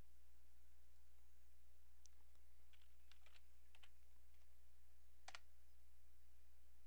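A few faint keystrokes on a computer keyboard and mouse clicks, over a steady low hum.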